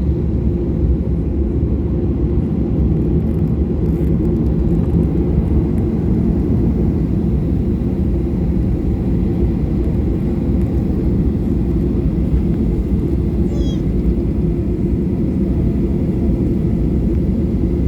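Steady low drone of a Boeing 737-800's CFM56 engines heard inside the cabin, running at low power before takeoff.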